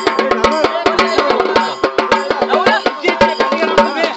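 Procession drums beating fast and evenly, many sharp strikes a second, over a steady held tone and shouting voices.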